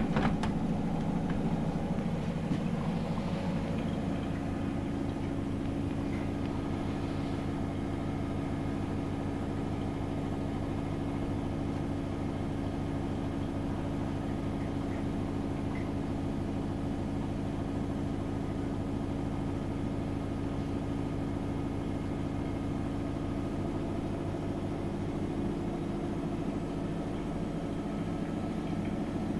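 Samsung WW80R421HFX front-loading washing machine running with a steady mechanical hum at an unchanging pitch.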